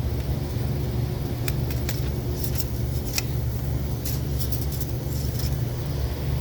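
Volkswagen Jetta's engine idling steadily, run up just after a fresh oil fill, with a few light clicks and ticks scattered through.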